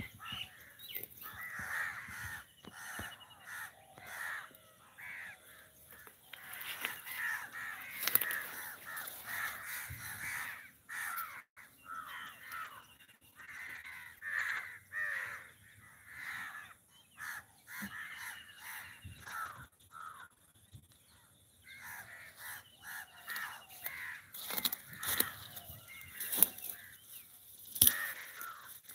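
Crows cawing over and over, with several birds calling across each other and a few faint higher chirps. A few sharp clicks stand out above the calls, once about eight seconds in and twice near the end.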